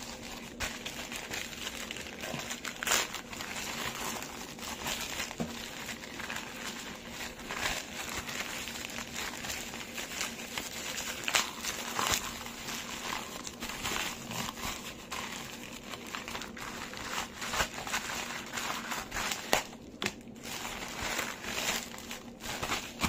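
A plastic courier mailer bag and bubble wrap crinkling and crackling in the hands as the parcel is opened: an irregular run of rustling with sharper snaps now and then.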